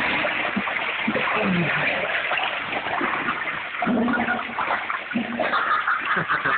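Water splashing and sloshing continuously as someone wades through shallow culvert water, with a few short low vocal sounds in between.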